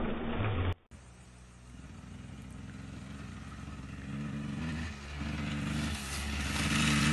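Dirt bike engine running and revving, with pitch rising and falling as the rider works the throttle. After a brief break about a second in, it starts faint and grows steadily louder as the bike comes closer.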